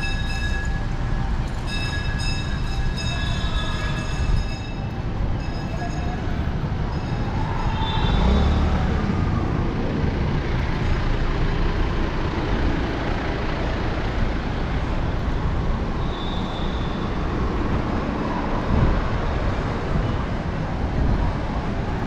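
City street ambience: a steady rumble of traffic from cars and motorcycles idling and passing, with the bustle of pedestrians. A pitched tone sounds on and off in long blasts during the first few seconds.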